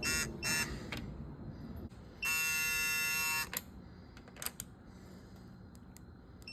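Digital torque wrench buzzer sounding while a cylinder-head stud is torqued. Two short buzzes come about half a second apart, then a steady buzz lasts about a second, signalling the set torque is reached. A few light clicks follow.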